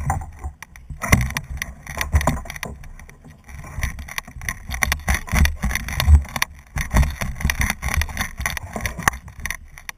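Tall marsh grass rustling and crackling against the camera as it is carried through the grass, with heavy low bumps from handling.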